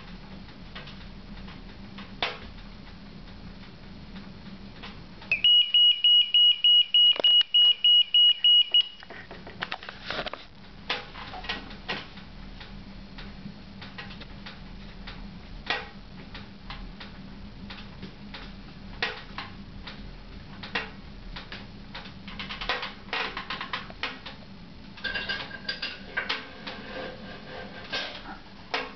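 Flue temperature monitor's alarm beeping in a rapid, high-pitched series, about four beeps a second, for roughly three seconds starting about five seconds in: the alert that the flue temperature has passed its set limit. Scattered clicks and crackles run around it.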